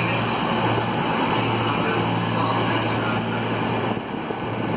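CrossCountry Class 221 Super Voyager diesel-electric train moving along the platform, its underfloor diesel engines giving a steady low drone over the rumble of the train.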